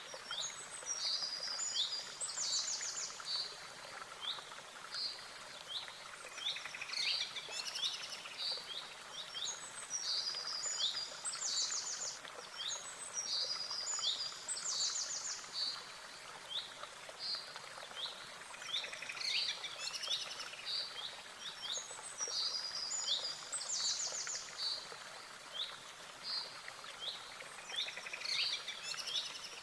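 Songbirds singing: short high chirps and fast rattling trills, in phrases that come again every few seconds, over a steady hiss.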